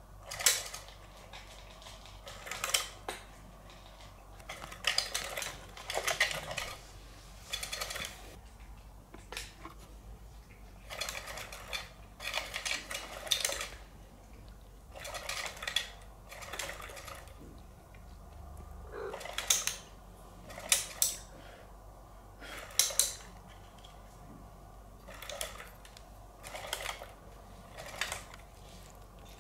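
Battery-powered GiGwi spinning-feather cat toy running in short, irregular bursts of mechanical rattling and clicking, each under a second, coming about every one to two seconds.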